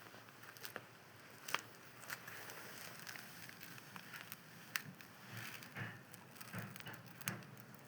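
Cat eating dry food: faint, irregular crunches and clicks, with a few soft knocks.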